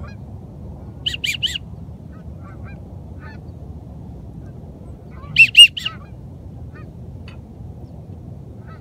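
Goose call blown in two short runs of honks: four quick notes about a second in, then three louder notes a little past the middle, over a steady low background noise.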